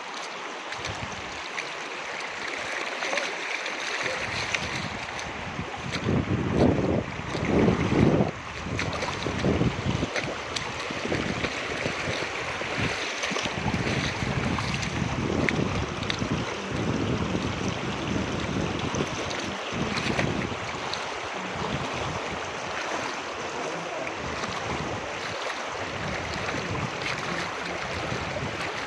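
Rushing river water, a steady hiss throughout, with wind buffeting the microphone in low rumbling gusts, loudest about six to eight seconds in.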